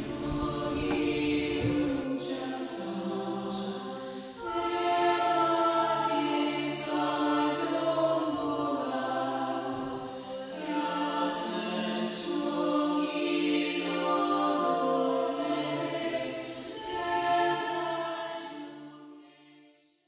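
Choir singing a slow song in harmony, several voices holding long notes in phrases; it fades out near the end.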